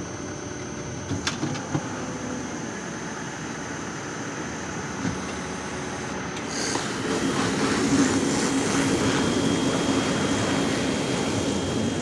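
Stationary silage round baler-wrapper running: a steady mechanical drone from its drive and conveyor rollers, with a few light clicks about a second in, growing louder about halfway through.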